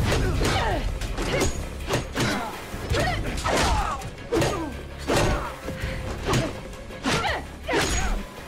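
TV fight-scene soundtrack: a quick run of hits and thuds, about two a second, over music.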